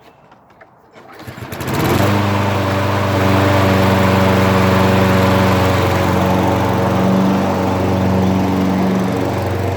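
Toro Recycler 20332 walk-behind lawn mower engine starting about a second in, sputtering up quickly and then running steadily.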